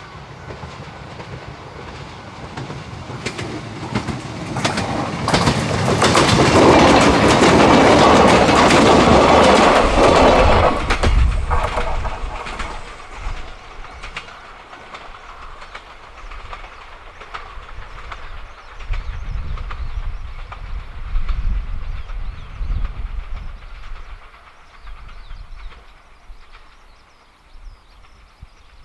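Yoro Railway electric train passing close by, its wheels clacking over rail joints. The sound builds to a peak for about five seconds, then fades away, leaving a low rumble that swells once more before dying down.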